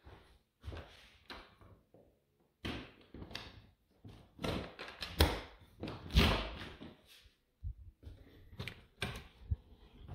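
A door being unlocked and opened: a series of clicks and knocks from its deadbolt and latch handle, the loudest two about five and six seconds in.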